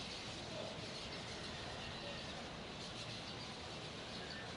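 Steady hiss of rain falling on a wet street, with a few faint high chirps.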